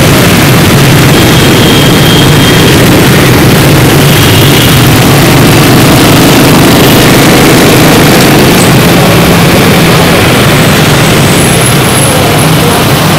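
Honda Win motorcycle running in dense motorbike traffic, heard from the rider's seat as a loud, even rush of noise over a low, steady engine drone.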